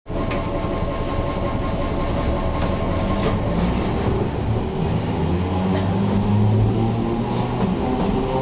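Tosa Electric Railway tram running, heard from inside the driver's cab: its nose-suspended traction motors give a steady whining hum that shifts in pitch, with a few sharp clicks from the wheels on the rails.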